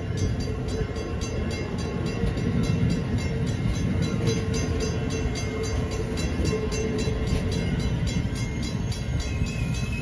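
Amtrak passenger cars rolling past on the rails: a steady heavy rumble of wheels on track with quick regular clicking, and a faint high wheel squeal near the end.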